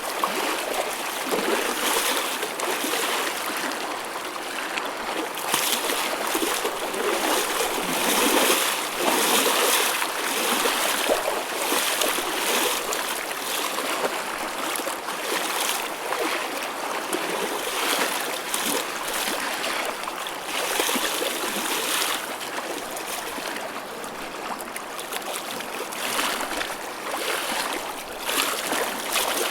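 Choppy ocean waves: a continuous wash of churning water broken by frequent small splashes, with little deep rumble.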